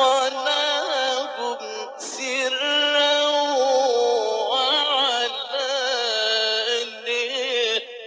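A male Quran reciter chanting in a long, drawn-out melodic phrase, holding notes and letting the pitch waver and glide. The voice breaks off near the end as he pauses for breath.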